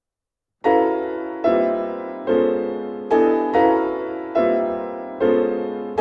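Grand piano playing loud, dense chords struck one after another about every 0.8 s, each left to ring and die away before the next, starting just over half a second in after a silence.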